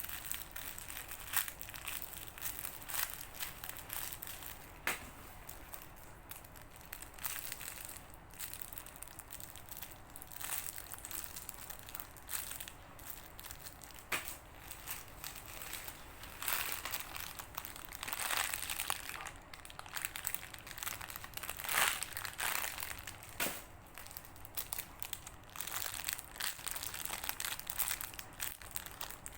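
Squishy foam toys being squeezed and handled, giving irregular crinkling and scrunching noises with scattered clicks. The sound swells several times, loudest a little past the middle.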